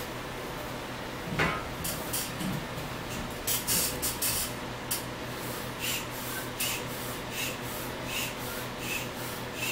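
Foot pump being stepped on to inflate an exercise ball, each press pushing a short puff of air through the hose. The puffs come irregularly at first, then settle into a steady rhythm of about one every three-quarters of a second in the second half.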